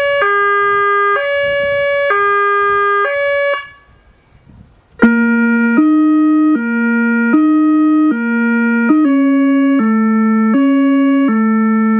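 Whelen Carbide electronic siren sounding a hi-lo two-tone, stepping between two notes about once a second, which cuts off a little past three seconds in. After a short pause it plays the Italian police two-tone through the Howler low-frequency speaker, which adds a deep low note under each tone, stepping a little faster. About nine seconds in it changes to the Austrian ambulance two-tone, still with the Howler.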